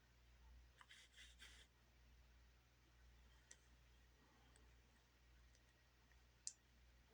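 Near silence: room tone with a low hum, broken by a few faint clicks, a brief cluster about a second in and a sharper single click near the end.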